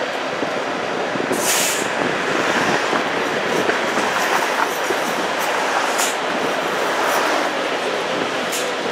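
Toronto streetcar running along its rails, heard from on board: a steady running noise of wheels and motors. Short, sharp high-pitched hisses cut through it three times, the strongest about a second and a half in.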